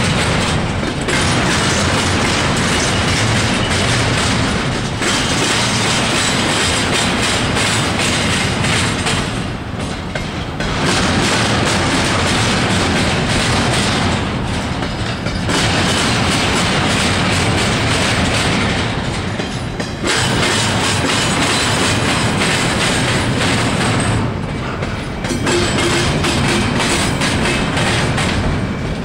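Intermodal freight train's cars rolling past: steady wheel-and-rail rumble with clickety-clack, dipping briefly about every five seconds.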